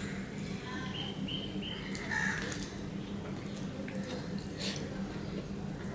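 Soft wet chewing and mouth sounds of a man eating soft rice-and-lentil khichuri by hand, with a few small clicks, over a steady low hum. A few short high chirps sound about a second in.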